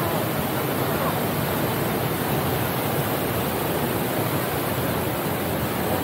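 Waterfall: a steady, unbroken rush of heavy falling water close by.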